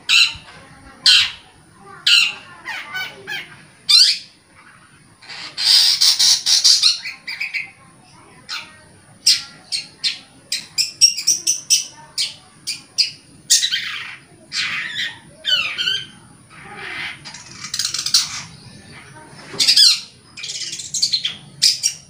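Long-tailed shrike (cendet) singing: a rapid series of short, rasping calls and quick high notes, with a longer rasping burst about six seconds in.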